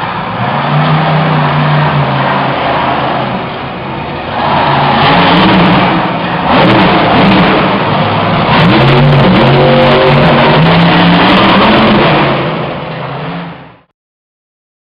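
Monster truck engine revving hard, its pitch rising and falling as the truck accelerates and lifts into a wheelie. The sound cuts off abruptly near the end.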